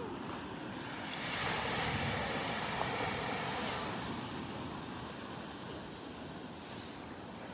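Small ocean waves breaking and washing up a sandy beach, the wash swelling about a second in and slowly easing off.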